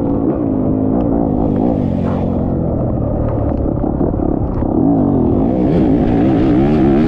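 Off-road race engine running under load, its pitch rising and falling with the throttle, with quick rev swings in the second half. Occasional short knocks and rattles come through over it.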